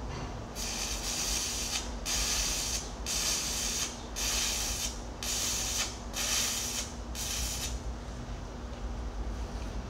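Electric arc welding on the steel teeth of an excavator bucket: seven short runs of crackling sizzle, each under a second, with brief breaks between them, stopping a couple of seconds before the end.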